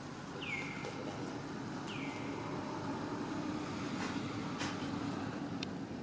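Steady outdoor background hum with two short, high calls that slide downward, about a second and a half apart near the start.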